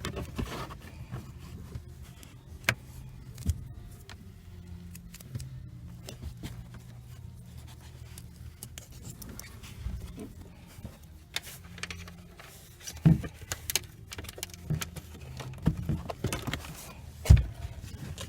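Scattered small clicks, light metallic jingling and scrapes of screws and parts being handled during a car speaker install, with a few sharper knocks in the second half. A faint steady low hum runs underneath.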